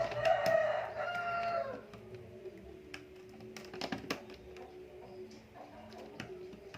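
A rooster crows once, a pitched call of nearly two seconds that falls at its end. Later come a few small sharp clicks as a laptop keyboard's plastic retaining clips are pried.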